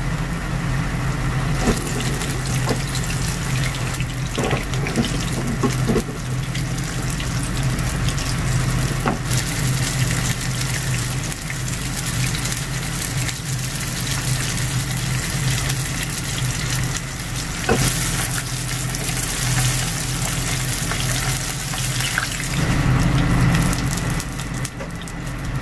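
Floured kyusen wrasse frying in oil at about 160 °C in a frying pan, a steady sizzle. A steady low hum runs underneath, with a few light clicks.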